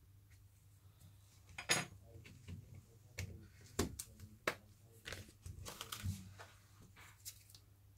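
Irregular small plastic-and-metal clicks and knocks as an iPhone 6 display assembly is folded down and pressed into the phone's housing and the phone is handled. The sharpest click comes about two seconds in, over a faint low hum.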